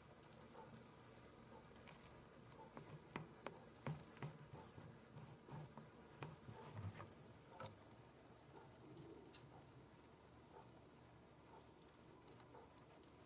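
Near silence, with a faint high chirp repeating evenly about twice a second and a few soft knocks and rustles in the first half.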